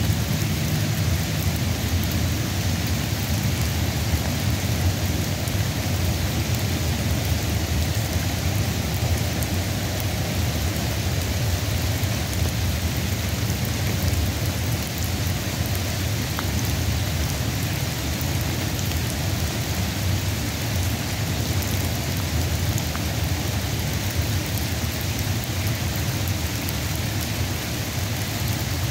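Steady rain of a sun shower falling, with a continuous low rumble underneath.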